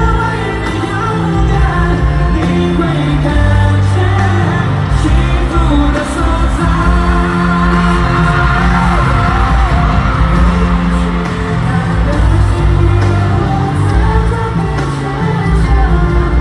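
Live pop concert music: a band playing with singing over a steady bass line.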